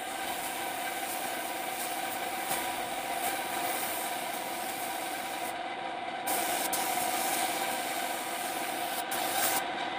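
A machine running steadily: a constant hum over a hiss, with small changes in the hiss about halfway through and near the end.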